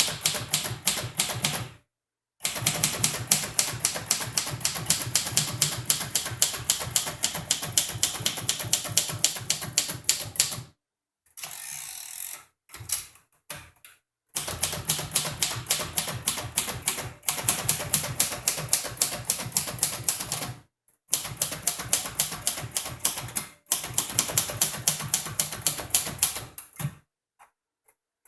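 A 1953 Royal Quiet De Luxe manual typewriter being typed on at speed: runs of rapid keystrokes, broken by several short pauses. A little before the middle there is a brief, different, scraping-like noise between runs.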